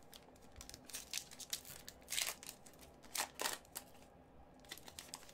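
Foil wrapper of a 2020-21 Upper Deck Series One hockey card pack being torn open and crinkled by hand. It makes a string of short crinkling rustles, loudest a little past two seconds in and again around three seconds in.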